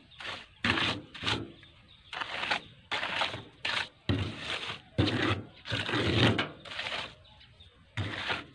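Pointed masonry trowel scraping and smoothing wet concrete, in a run of short strokes about one to two a second.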